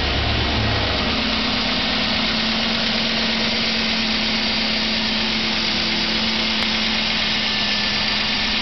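2008 Chevrolet Avalanche's 5.3-litre V8 running just after a cold start, settling into a steady idle about a second in. It has the knocking that the owner has been reporting to the dealer.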